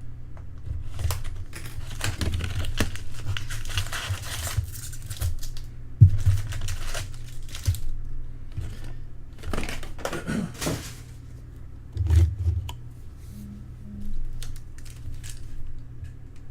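Trading-card pack wrappers crinkling and tearing as packs are opened, with scattered sharp clicks in between.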